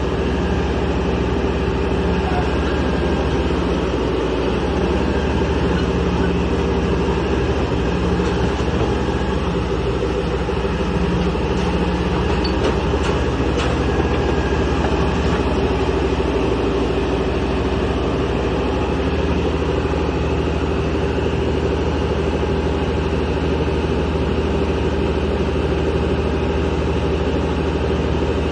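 Kaishan KS400 water well drilling rig running, a loud, steady engine drone that holds the same pitch and level throughout.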